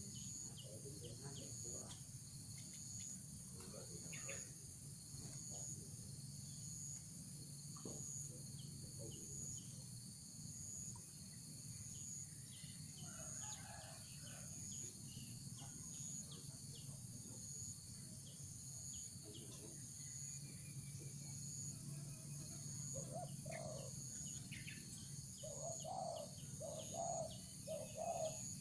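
Steady chorus of crickets or similar insects trilling, with a spotted dove starting a run of repeated low cooing notes near the end.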